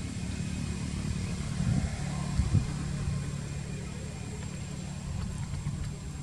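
Steady low hum of a running engine, with two brief dull thumps about two and two and a half seconds in.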